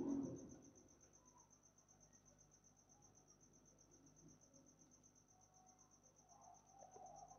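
Near silence: room tone with a faint, high, evenly pulsing trill.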